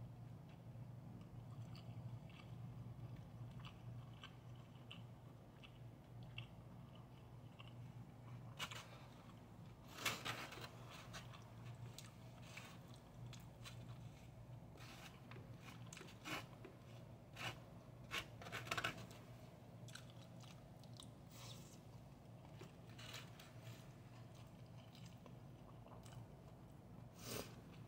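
Faint chewing of a mouthful of fried rice, with scattered sharp clicks and scrapes of a plastic spoon against a styrofoam container, loudest about ten seconds in and a few more a little later. A steady low hum lies underneath.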